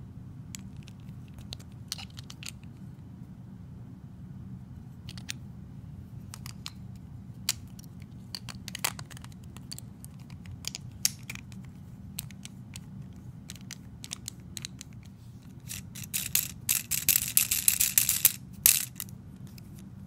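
Toy packaging and small plastic parts being handled while unboxing: scattered clicks and taps, then a few seconds of dense crinkling and tearing near the end, over a steady low hum.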